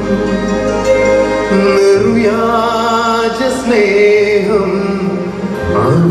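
A male voice sings a Malayalam Christian devotional song into a microphone, with live band accompaniment. The notes are held and gliding, over bass notes that change every couple of seconds.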